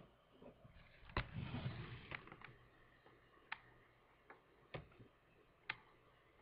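Faint handling noise of a VHS tape box held in the hand: a sharp click about a second in followed by a brief rustle, then a few scattered light clicks and taps as the box is shifted in the fingers.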